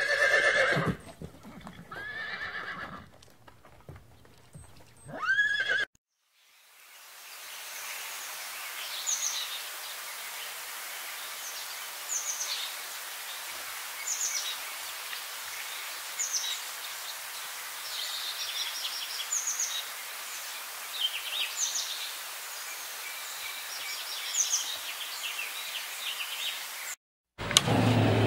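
A horse whinnying several times over the first few seconds. After a short gap comes a steady outdoor hiss with short high chirps every second or two. A loud, low-pitched sound starts just before the end.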